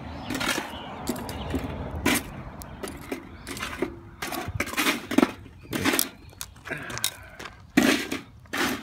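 Charcoal briquettes being picked up and set in place with metal tongs: a run of irregular clinks, knocks and scrapes as the briquettes tap against each other and the tongs.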